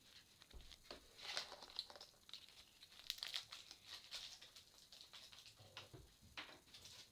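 Faint crinkling and rustling of something being handled in the hands, in irregular crackles, with a soft low thud near the start and another near the end.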